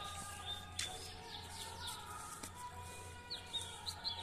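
Many short, high chirping calls, repeated throughout, over faint held tones and a low steady hum, with a single click about a second in.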